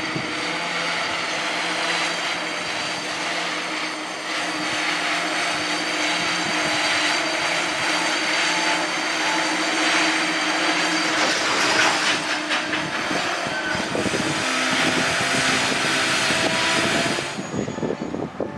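Liebherr LR11000 crawler crane working: a steady low engine hum under dense mechanical noise, which drops away suddenly near the end.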